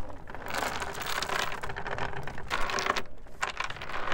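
Metal anchor chain rattling and clinking as it is handled by hand, in irregular bursts of link-on-link clatter.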